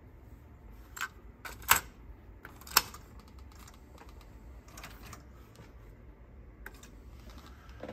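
Sharp plastic clicks from an Akai GX-9 cassette deck: the cassette door being shut on a loaded tape and front-panel transport buttons being pressed. There are about six separate clicks, the two loudest about two and three seconds in.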